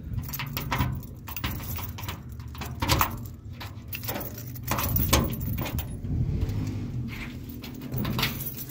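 Keys on a keyring jangling and clicking as a key works the lock of a metal door, with sharp clicks throughout and the loudest about 3, 5 and 8 seconds in. The metal door is pulled open near the end.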